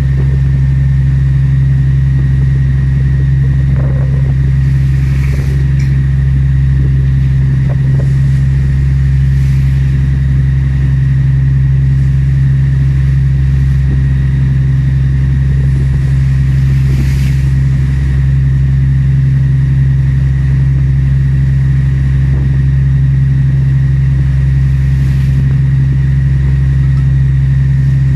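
Boat engine running at a constant speed: a loud, unchanging low drone with a thin steady high whine over it.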